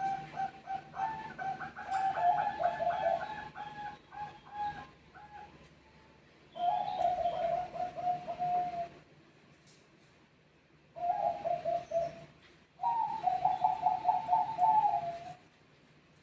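Zebra doves (perkutut, Bangkok song strain) cooing in rapid staccato phrases, more than one bird calling back and forth. There are four phrases of about two seconds each, the first overlapping a second voice, with short pauses between.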